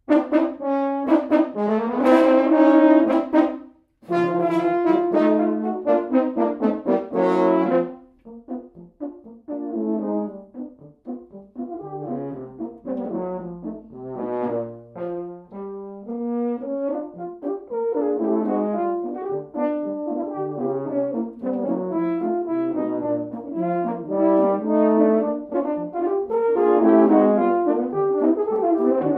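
A quartet of French horns playing a piece together in chords. They stop briefly about four seconds in and then go on. The playing turns softer for a while after about eight seconds and grows louder again in the second half.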